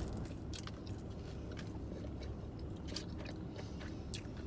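A person chewing food close to the microphone, with small wet mouth clicks scattered through, over a steady low hum inside a car.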